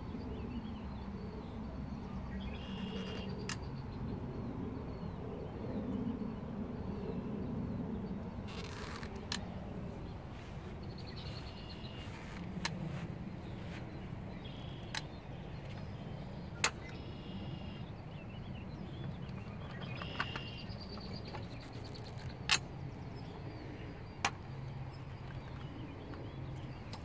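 Steady outdoor background hum with birds chirping now and then, and a scattering of short, sharp clicks or taps from the work, the loudest about two-thirds of the way through.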